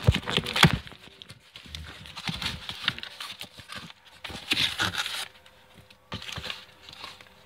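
Cardboard box handling: flaps pulled open and boxes shifted, giving irregular knocks, scrapes and rustling of cardboard, loudest as two sharp knocks in the first second.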